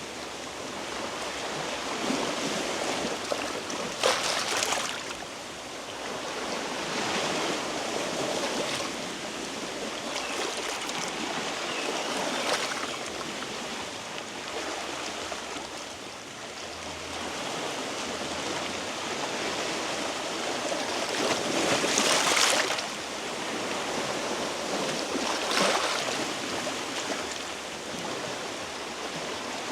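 Sea waves washing against a rocky shore: a steady wash with several louder surges as waves break, the biggest about two-thirds of the way through.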